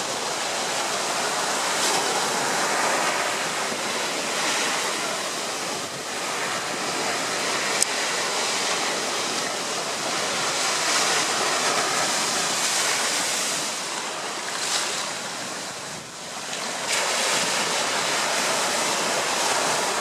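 Ocean surf breaking and washing up the sand in a continuous rush that swells and ebbs with each wave. It drops briefly about three-quarters of the way through, then rises again as the next wave comes in. A single sharp click sounds a little before halfway.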